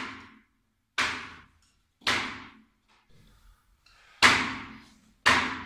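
Sharp snaps from a child's karate techniques as he punches and steps through a kata: four sudden cracks about a second apart, with a longer pause in the middle, each ringing briefly in the small room.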